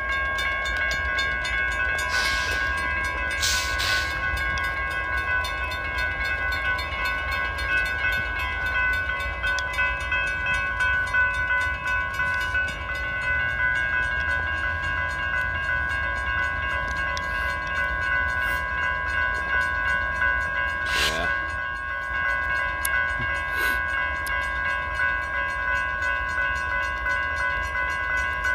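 Several railroad grade-crossing bells ringing together, steady and continuous. They are held on by a stopped freight train blocking the crossing, over a low rumble and a few short clicks.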